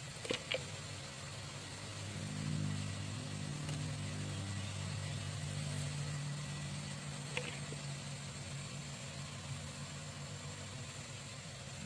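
A low engine hum running steadily, a little louder from about two seconds in, with two sharp clicks near the start and another about seven seconds in.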